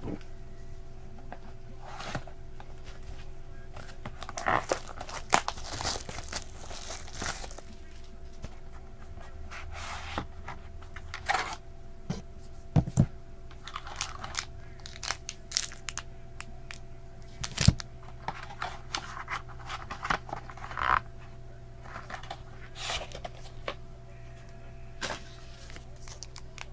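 Trading card packaging being opened by hand: plastic wrapper torn and crinkled and cardboard handled, with scattered short taps and scrapes. A steady low hum runs underneath.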